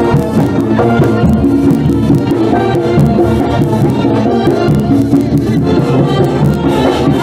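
Marching band playing, with a brass melody over steady drumming.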